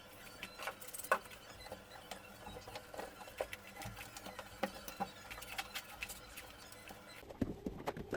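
Scattered light clicks, taps and scraping as the inside of a refrigerator is wiped and scrubbed clean, at an irregular pace.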